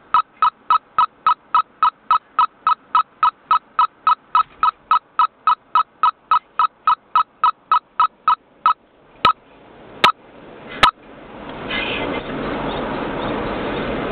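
Rapid electronic warning beeps at one steady pitch, about three a second, which stop about nine seconds in. Three sharp clicks follow, then the car's road and engine noise swells and runs steadily.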